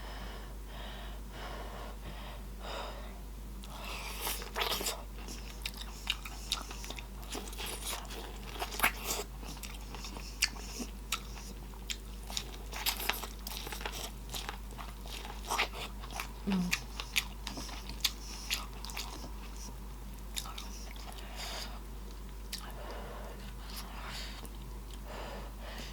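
Close-up eating sounds: biting and chewing with wet mouth clicks and smacks, coming irregularly several times a second.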